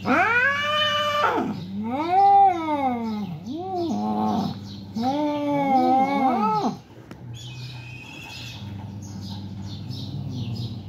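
Cats yowling at each other in a fight standoff: four long, wavering howls that rise and fall in pitch. The howls stop about seven seconds in.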